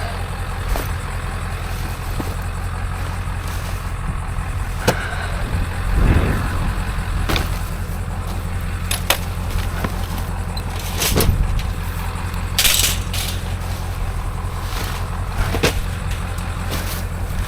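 Motor vehicle running with a steady low engine and road rumble, with scattered sharp clicks and rattles.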